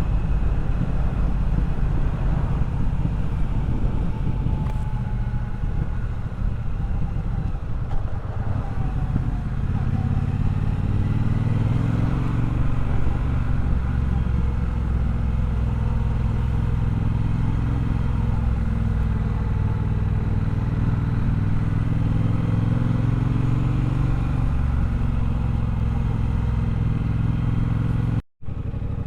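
Triumph Bobber's 1200 cc parallel-twin engine running while the bike is ridden on the road, its pitch rising and falling with throttle and gear changes. The sound cuts out for a split second near the end.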